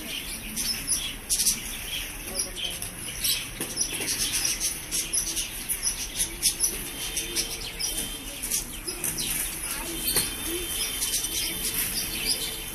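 Quad roller skate wheels rolling over a rough stone mosaic floor: a steady gritty, crackling rattle.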